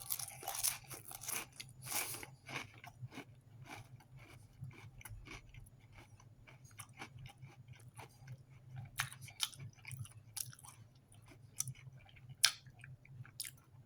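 A person chewing MRE crackers with jalapeno cheese spread: a run of short crunches, thickest in the first couple of seconds, then sparser. The crackers are slightly stale but still crunchy.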